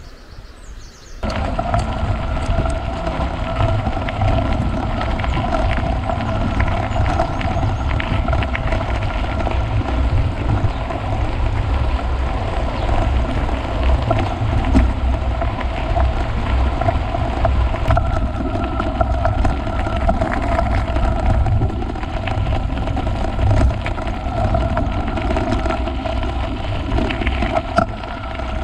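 A steady motor hum over a low rumble, starting abruptly about a second in and running on unchanged.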